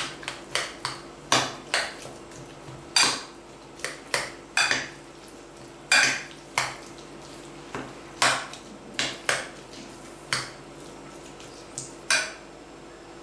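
A metal spoon stirring a thick chopped-pepper paste in a glass dish, clinking against the glass in irregular sharp knocks, about one or two a second. The knocks stop about a second before the end.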